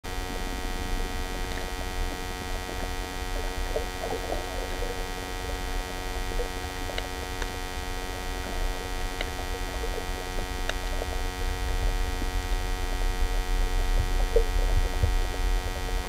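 Underwater recording through a camera's waterproof housing: a muffled low rumble of water under a steady hum of several fixed tones, with a few faint clicks.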